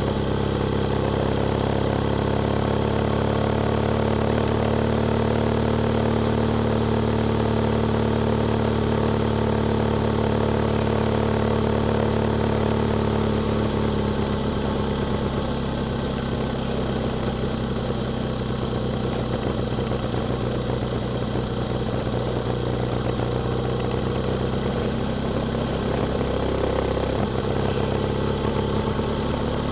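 Motorcycle engine running at a steady road speed, with wind and road noise. About halfway through, the engine note shifts and eases.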